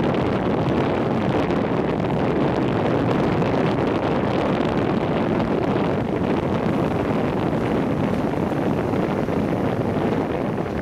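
Loud, steady wind noise on the microphone at the front of a moving Hong Kong double-decker tram's upper deck, mixed with the tram's running noise.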